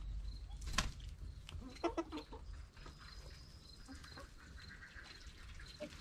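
A flock of Australorp, Black Sexlink and Cuckoo Marans hens clucking while they peck at grass, with a short run of louder clucks about two seconds in and a sharp click a little before that.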